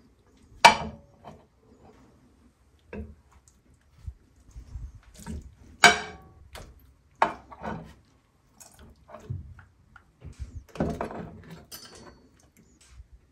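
Cooked lamb shanks and potatoes being lifted out of a pot of broth onto a ceramic plate: sharp clinks against the plate, three of them loud, with liquid dripping and sloshing in between.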